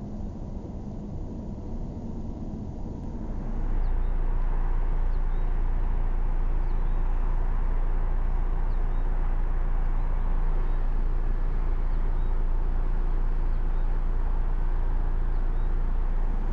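Road noise inside a moving car for about three seconds, then a sudden change to a louder, steady outdoor rumble and hiss with a few faint short high chirps.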